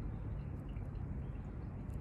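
Steady low rumbling background noise with a few faint, light clicks.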